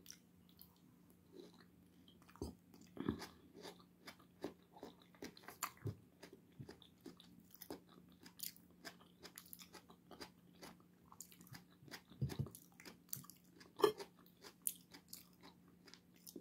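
A person chewing pieces of tomato close to the microphone: a faint, irregular run of small mouth clicks and bites, with a few louder ones.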